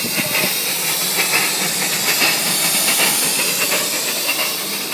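Miniature live-steam locomotive, a model of the LMS Royal Scot class no. 6100, hissing steadily as steam escapes at its cylinders while it hauls a riding train.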